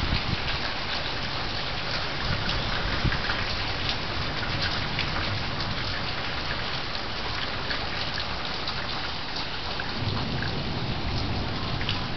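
Heavy rain falling steadily: a dense, even hiss dotted with many small taps of drops striking surfaces.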